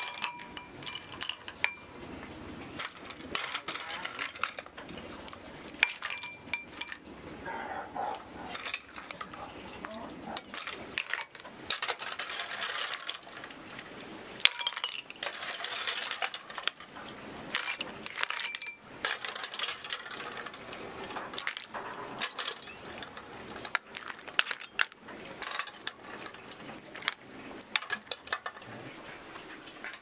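A metal ladle clinks and scrapes against a pot and ceramic bowls while boiled snails are scooped out, and the snail shells clatter into the bowls. There are repeated clinks throughout, and the first one rings on briefly.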